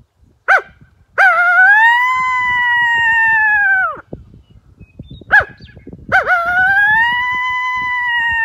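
Coyote howl blown on a mouth diaphragm call with no amp horn. It comes twice, each time a short sharp note and then a long howl that rises, holds steady and drops away at the end.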